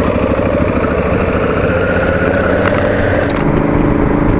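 Honda Africa Twin CRF1000's parallel-twin engine running while the motorcycle is ridden. About three seconds in there are a couple of short clicks, and the engine note becomes steadier and more even.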